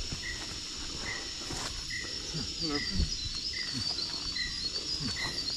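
Steady high-pitched drone of tropical forest insects, with a short high note repeating evenly a little more than once a second.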